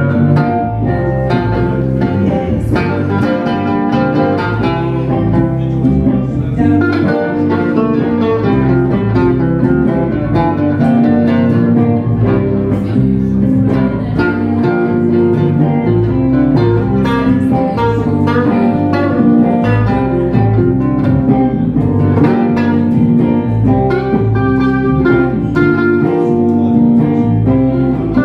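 Live blues band playing an instrumental passage on electric and acoustic guitars.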